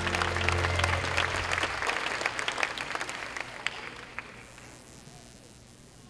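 Audience applause, dense at first and dying away over about four seconds. The closing chord of background music rings under it for the first two seconds.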